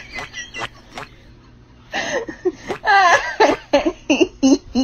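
A person laughing and giggling in short bursts, mixed with a few sharp clicks.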